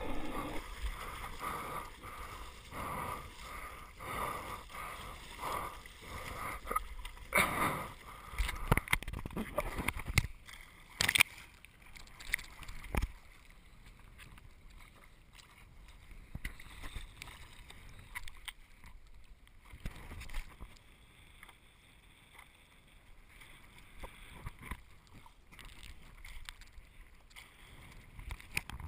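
Sea water splashing and sloshing around a GoPro at the surface of choppy ocean water. There is a run of regular splashes for the first several seconds, then a few sharp knocks near the middle, and then quieter lapping.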